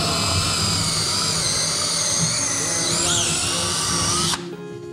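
Cordless drill running into a wooden board, its motor whining steadily under load with a slightly wavering pitch, then stopping abruptly about four and a half seconds in.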